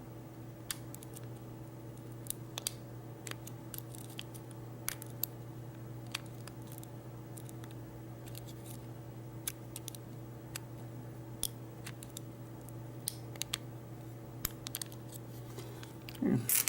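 Small, irregular metallic clicks of a lock pick and tension wrench working the pins of a Master Lock 570 padlock during single pin picking, over a steady low hum.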